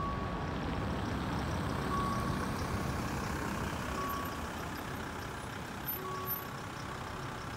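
A delivery van's engine and tyres rumble as it rolls slowly over a level crossing. Over it, a short electronic warning tone from the crossing signal sounds about every two seconds while the red lights are on.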